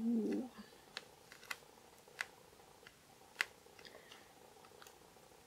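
A few faint, separate light clicks and taps, about five spread over several seconds, as the diamond painting canvas and craft tools are handled.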